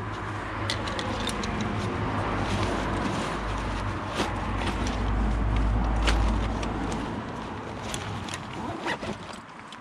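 A passing vehicle's low engine rumble swells to a peak about five to six seconds in, then fades, over scattered short clicks and rustles.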